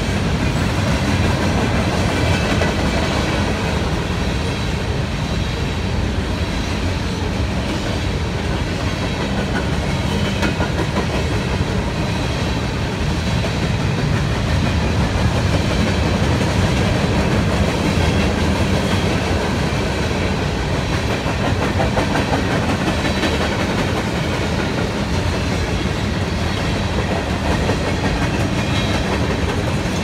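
Empty covered hopper cars of a freight train rolling past: the steady noise of steel wheels on rail.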